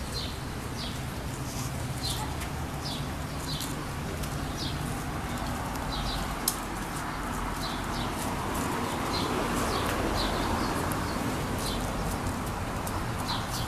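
Small birds chirping repeatedly, short falling high notes two or three times a second, over steady outdoor background noise that swells for a few seconds midway. A single sharp click about six and a half seconds in.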